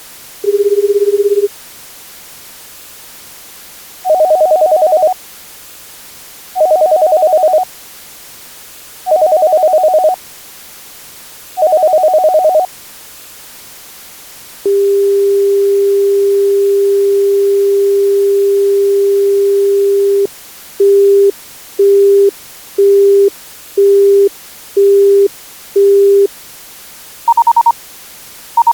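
A sequence of telephone line tones. A short low tone ends first. Then four one-second ringing pulses of two close pitches, about two and a half seconds apart. Then a steady low dial tone for about six seconds, and a busy signal of six short beeps, about one a second. Short higher beeps start near the end.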